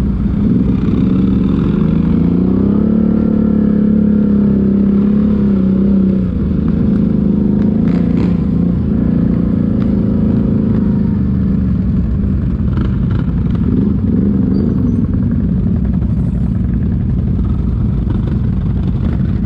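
ATV engine running on the trail. Its revs rise about two seconds in, hold, then ease off about six seconds in, with a few brief knocks and clatter later.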